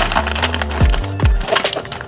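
Background music with a steady beat of deep, pitch-dropping kick drums and bass notes, with sharp percussion clicks on top.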